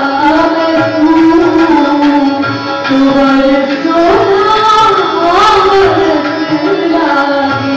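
Live ghazal performance: a woman singing in Gujarati to instrumental accompaniment with tabla, heard from the seats of the hall.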